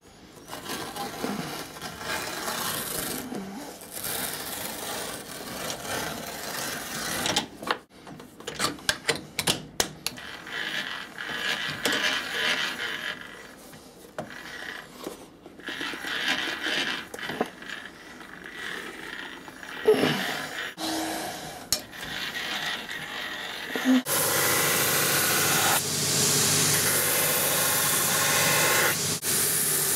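Cobbler's sole machine working its toothed feed wheel along the edge of a new leather shoe sole, running unevenly with bursts of quick clicking. About three-quarters of the way through, a shoe finishing machine's buffing wheel takes over with a steady, louder spinning noise.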